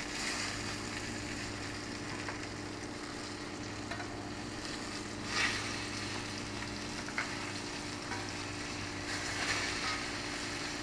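Breaded pork chops sizzling steadily in oil in a frying pan, with a few light clicks of a fork against the pan, the clearest about five and a half seconds in.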